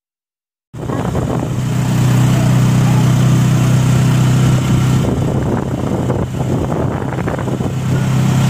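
Motor vehicle engine running at a steady speed, a constant low hum with road and wind noise, starting abruptly less than a second in.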